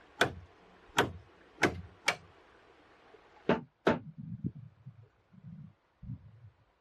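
Wooden peg being hammered into a log railing joint: six sharp, unevenly spaced wooden knocks in the first four seconds, followed by several softer, duller knocks.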